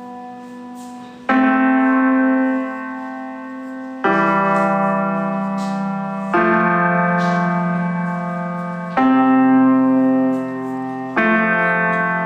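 Background music: sustained keyboard chords, each struck sharply and then held, a new chord about every two and a half seconds.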